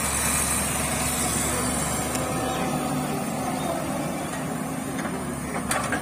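Hyundai tracked excavator's diesel engine running steadily as it digs, with one short knock near the end.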